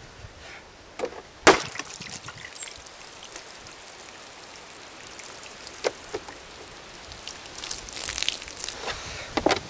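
Water sloshing and splashing out of a plastic milk jug as it is tipped up, about three-quarters of the way through, with a sharp knock about a second and a half in and a few handling clicks near the end.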